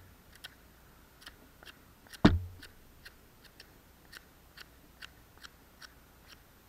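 Fixed-blade knife whittling a point on a bark-covered stick: short, regular shaving cuts into the wood, about two or three a second, with one much louder sharp knock a little over two seconds in.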